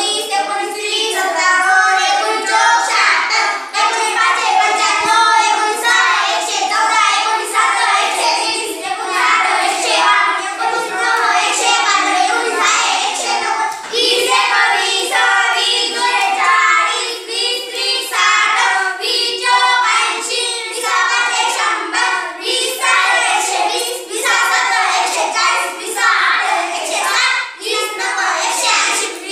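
A small group of children chanting multiplication tables together in Marathi, in a sing-song unison rhythm that goes on without a break.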